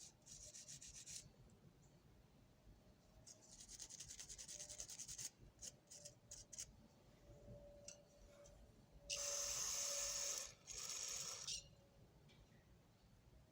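Greasy ratchet parts being scrubbed and rubbed in short stretches of fast strokes, with a few light clicks. About two-thirds of the way in come two louder, steady hissing bursts.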